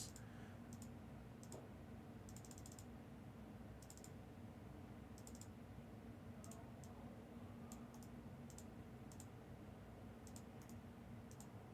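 Faint, scattered clicking of typing on a computer keyboard, in single taps and quick runs, over a low steady hum.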